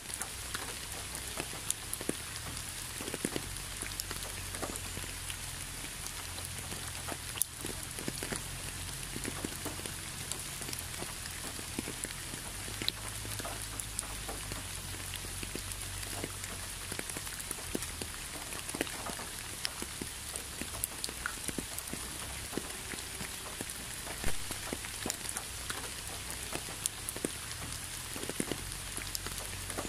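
Steady rain: a constant hiss with many separate drop impacts clicking irregularly throughout, one louder drop about 24 seconds in.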